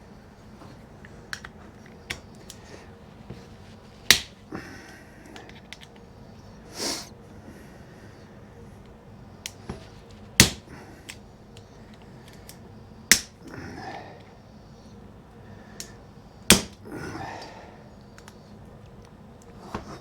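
Hand tools and small metal parts being handled during a chainsaw engine teardown: four sharp knocks at uneven intervals, lighter clicks and ticks between them, and a few brief soft scrapes.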